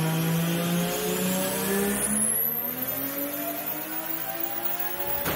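Nissan Skyline R34 GT-R's twin-turbo straight-six revving hard under load on a chassis dyno, its pitch climbing through the pull with a high whine rising above it. The sound cuts off suddenly near the end.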